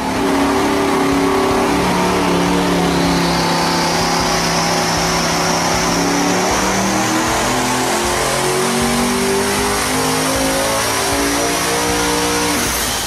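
The quad-turbocharged V16 built by Steve Morris Engines for the Devel Sixteen, running under load on an engine dynamometer with a loud, steady engine note. A high whine climbs steadily in pitch through the run, and the engine cuts back just before the end.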